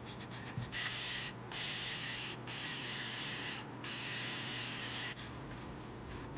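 Four bursts of hissing spray, each one to one and a half seconds long with short breaks between, used in cleaning around the lapped valve of a Briggs & Stratton 12 hp I/C engine.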